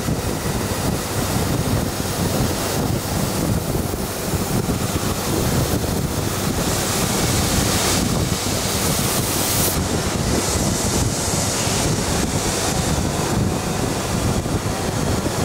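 Abrasive belt grinding against a spinning cast metal pot blank on a polishing machine: a loud, steady rushing hiss of belt on metal. The hiss turns sharper and brighter for a few seconds around the middle.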